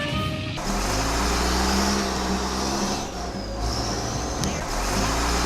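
Music cuts off about half a second in, then a motor runs steadily with a low hum and a high whine that rises and falls, easing off briefly around three seconds in.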